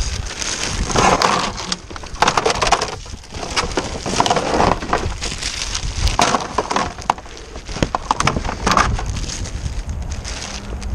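Clear plastic wrapping crinkling and rustling as it is pulled and handled, in repeated bursts with sharp crackles.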